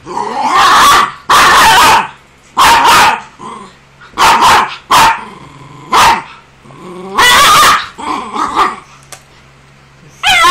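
Young miniature pinscher puppy barking at a blower it is scared of: about nine loud barks, some short and sharp, some drawn out to most of a second.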